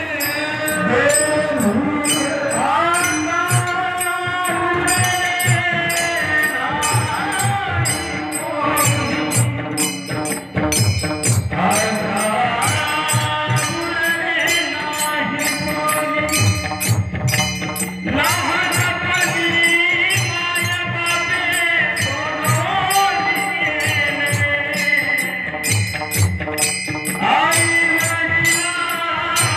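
Marathi devotional bhajan: a man sings a bending melody over small hand cymbals (taal) clashing in a steady beat and a drum.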